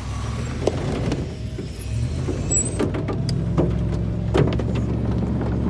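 Pickup truck engine running under load through mud, heard from inside the cab, pulling harder about two seconds in. Scattered sharp ticks and knocks of mud clods hitting the body and windshield, most of them in the second half.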